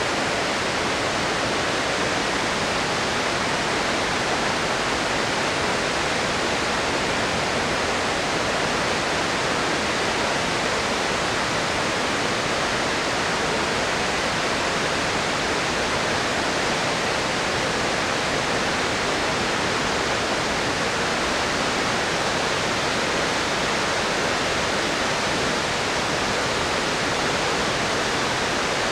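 Floodwater pouring from the Kawaji concrete arch dam's outlets during a flood release of about 200 cubic metres a second: a steady, unbroken rush of falling water.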